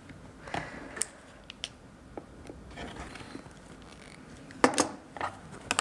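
A rotary cutter trims quilt fabric along an acrylic ruler on a cutting mat, giving scattered light clicks and taps. Sharper cutting strokes come about four and a half seconds in and again near the end.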